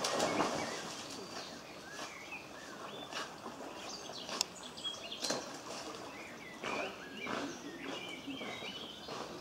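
A dog splashing into a pond, then swimming and paddling through the water with short splashes. Small birds chirp throughout.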